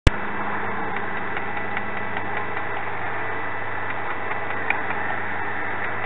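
Steady rumble and hum of distant road traffic, with faint scattered calls from a large flock of birds overhead. A sharp click at the very start.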